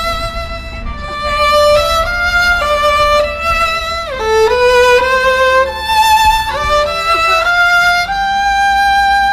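Music: a slow, loud melody of long held notes with vibrato, sliding down about four seconds in and back up a little after six.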